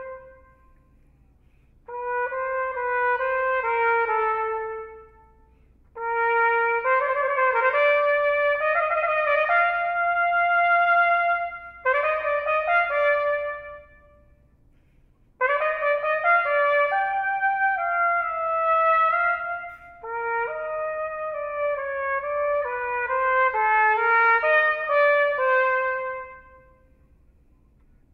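Unaccompanied trumpet playing several phrases of moving notes in a resonant hall, with short silent pauses between the phrases.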